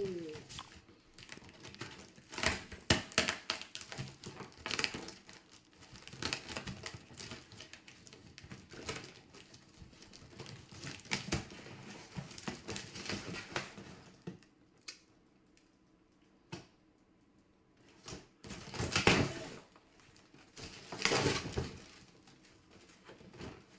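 Packaging being torn open and crinkled as a package is unboxed: dense irregular rustling and crackling, a quieter spell, then two louder bursts of crumpling near the end.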